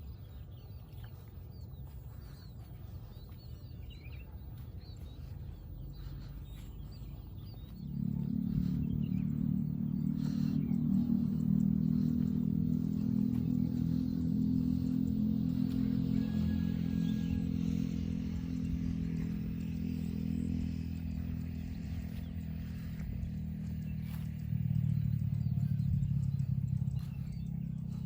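Outdoor rural ambience with faint bird chirps, then about a quarter of the way in a small engine starts to be heard, running steadily with a low hum. It grows louder for a few seconds near the end.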